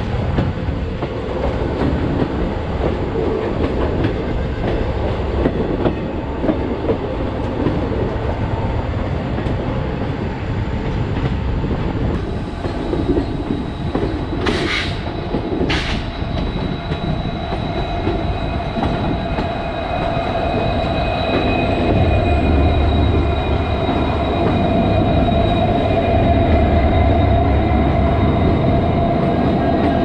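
Passenger train running on the rails, its wheels and coaches making a steady rumble and clatter, with two short sharp noises about a second apart around the middle. From about two-thirds of the way in, a deeper hum and steady whining tones grow louder as the coach runs alongside diesel locomotives on the next track.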